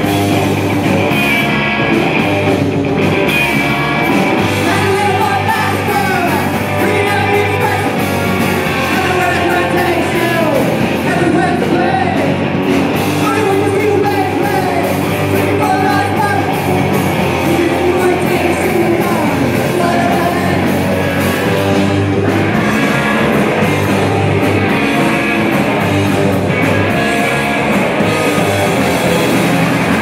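A rock band playing live and loud: distorted electric guitar, electric bass and drum kit, with a woman singing lead.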